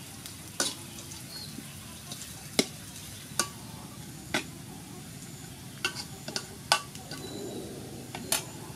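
Metal spatula stirring sliced lemongrass and garlic frying in oil in a steel wok, over a steady low sizzle. The spatula strikes the wok with a sharp clink irregularly, roughly once a second, and several clinks come close together about six seconds in.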